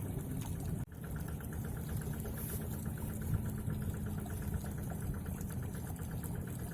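A small engine running steadily at idle, with a fast, even ticking over a low rumble. The sound cuts out for an instant about a second in, then carries on unchanged.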